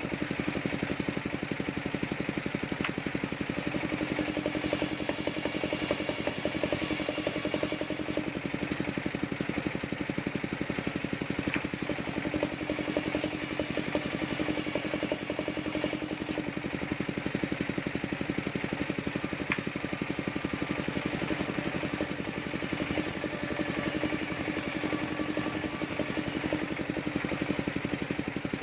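Table-mounted circular saw ripping waru (sea hibiscus) wood planks, its drive engine running steadily. A higher cutting whine comes and goes in stretches of a few seconds as the planks feed through the blade.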